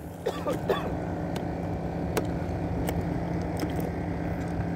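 Small boat's engine running at idle, a steady low drone, with a few sharp clicks.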